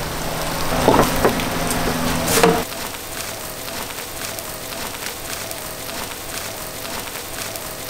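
Mahi-mahi fillet sizzling and crackling on the heat, a fine continuous crackle. During the first two and a half seconds a low steady hum and a few knocks sound over it, then stop suddenly.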